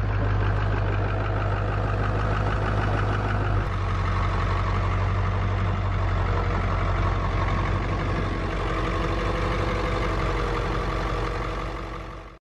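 1997 Ford pickup's 7.3-litre Power Stroke direct-injection turbo diesel idling steadily, with a fine even clatter, under heavy wind rumble on the microphone.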